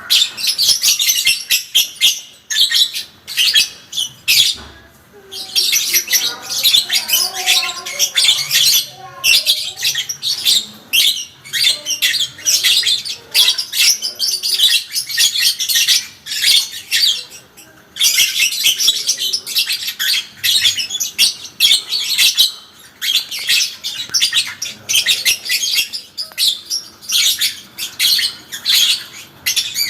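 Parblue lovebird singing its long 'ngekek' chatter: a rapid, high-pitched chattering trill run on for many seconds at a time, broken only by short pauses about 2, 5 and 18 seconds in.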